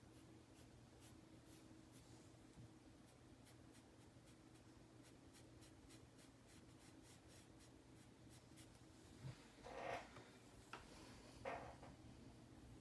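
Near silence with a faint steady hum, then a few short, soft scrubbing rubs about three-quarters of the way through: a sponge-tipped PanPastel applicator being worked against pastel or paper.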